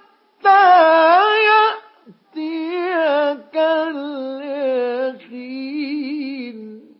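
Male Quran reciter chanting in the ornamented mujawwad style: four long held phrases whose pitch waves up and down, with short breaths between them. The last phrase sinks lower and stops near the end.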